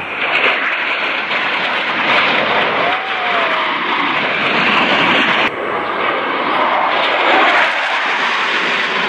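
Jet engine noise from USAF Thunderbirds F-16 Fighting Falcons passing overhead, loud and steady. It breaks off abruptly about five and a half seconds in and picks up again at once.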